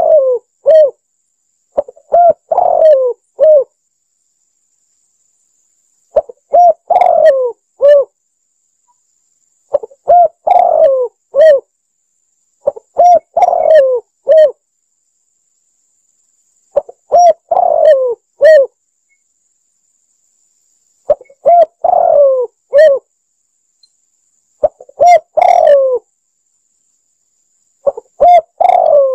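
Spotted dove (tekukur) cooing loudly as a lure call: a short phrase of several rising-and-falling coos, repeated eight times about every four seconds with silence between.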